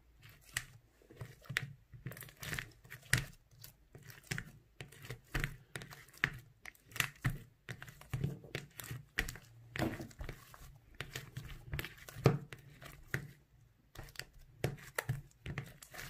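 Hands kneading, stretching and folding a soft, somewhat sticky slime, giving a continuous run of irregular wet crackles and pops, several a second, as the slime pulls apart and presses back together.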